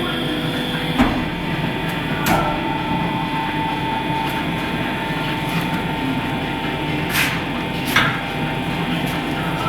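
Large-wheel tyre changer machine running with a steady hum, and tool-on-wheel work giving sharp knocks: one about a second in, another a second later, then two close together about three quarters of the way through.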